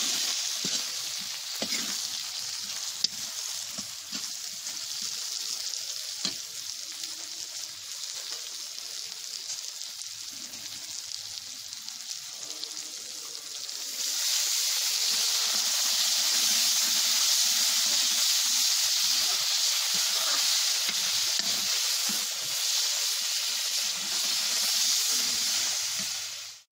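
Sliced vegetables sizzling in hot oil in a kadai, stirred with a metal spoon that gives a few sharp scrapes and clicks against the pan. About halfway through, liquid is poured into the hot pan and the sizzling turns suddenly much louder and stays loud.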